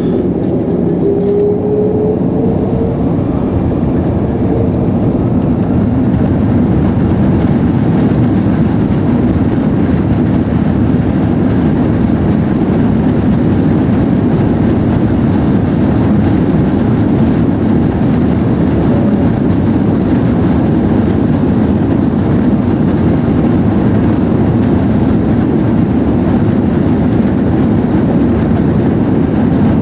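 Airbus A330-200 jet engines at takeoff power, heard from inside the passenger cabin. A tone rises in pitch over the first few seconds, then the engines settle into a steady, loud, deep roar.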